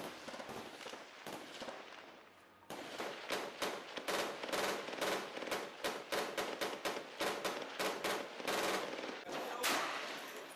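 Automatic gunfire in rapid bursts, several shots a second. It thins out briefly about two seconds in, then resumes abruptly and densely.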